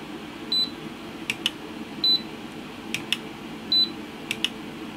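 Electronic beeps from the bench test equipment, a short high beep about every one and a half seconds, while the calibrator outputs a high DC voltage to the multimeter. Between the beeps come three quick double clicks of front-panel keys being pressed.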